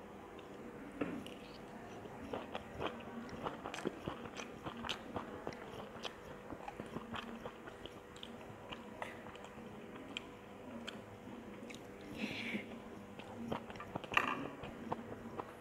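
A person chewing mouthfuls of egg fried rice, making many small irregular clicks, with a couple of louder sounds near the end.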